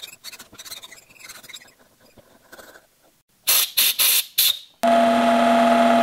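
Quiet clicks from a tap being worked by hand in a mini lathe's chuck. From about three and a half seconds in come a few short loud squeals, then from about five seconds a steady loud squeal as a parting tool cuts into a spinning plastic rod on the mini lathe.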